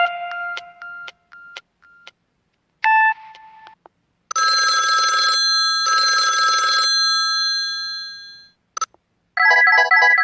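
Samsung SGH-M620 ringtones played through the phone's speaker: a short two-note chime, then a telephone-bell ringtone ringing twice, about a second each, fading out, and near the end a fast run of electronic notes as the next tone begins.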